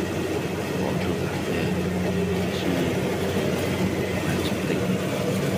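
Combine harvester's engine running steadily with a constant low hum.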